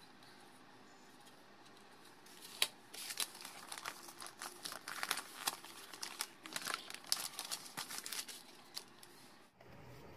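Gift wrapping paper rustling and crinkling as sheets are handled and spread out, a faint run of irregular crackles starting about two seconds in and dying away near the end.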